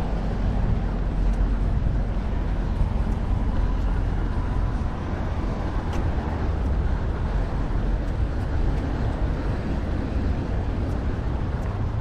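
Steady low outdoor rumble, with no clear single source standing out.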